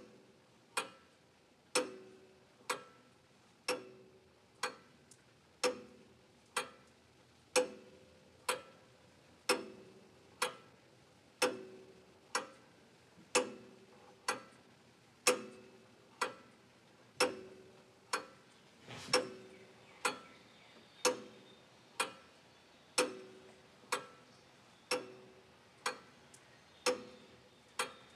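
A clock ticking slowly and evenly, about one tick a second.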